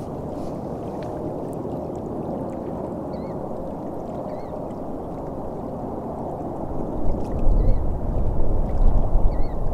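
Small waves lapping on a gravel lakeshore, under steady wind noise on the microphone that gusts louder about seven seconds in.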